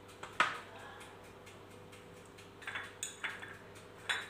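A kitchen utensil knocking and clinking against a dish: a sharp knock about half a second in, a few lighter taps around three seconds, and another sharp knock near the end.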